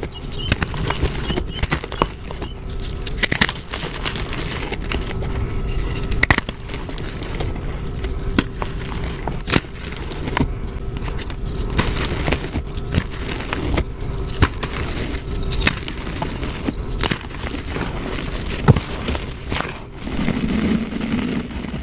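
Hands crushing and rubbing blocks of pressed coloured gym chalk, a steady run of crunching and crumbling crackles with many small sharp cracks, the loudest crunch a little before the end.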